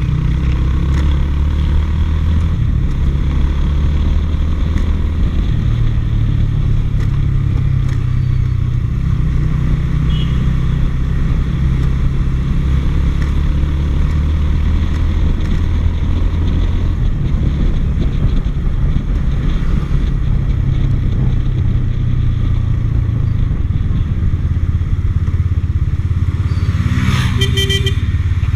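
Motorbike engine running steadily under the rider while cruising, with a constant low rumble whose pitch shifts slightly with speed. Near the end there is a brief high pitched sound.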